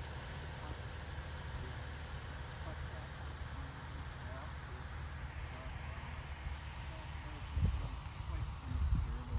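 Field insects trilling steadily at one high pitch, louder in the first three seconds, over a low steady rumble; a few low thumps near the end.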